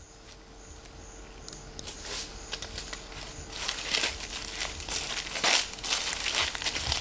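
Dry leaf litter and vegetation crackling and rustling as wild chimpanzees move about, getting louder from about two seconds in, over a faint steady hum.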